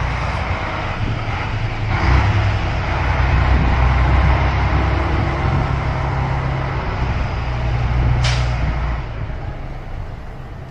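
Diesel tractor-trailer truck driving slowly past close by. Its engine makes a steady low drone that grows as it comes alongside and fades away after about nine seconds. A brief hiss comes about eight seconds in.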